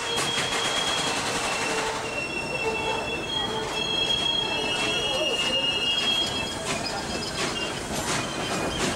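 Norfolk & Western Class J 611 steam locomotive and tender rolling along, heard from the cab: steady running noise with a thin, high wheel squeal for a few seconds in the middle and irregular clicks of the wheels over rail joints and switches.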